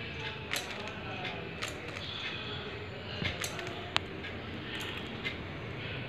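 Handling of a plastic-wrapped infrared remote control: scattered light clicks and plastic rustling as its buttons are pressed, with one sharper click about four seconds in.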